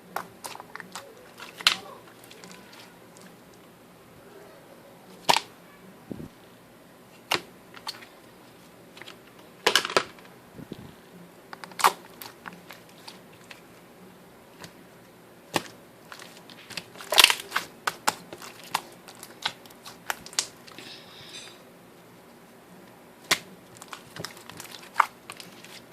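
Slime being played with by hand, giving irregular sharp pops and clicks a second or two apart, the loudest about two-thirds of the way through.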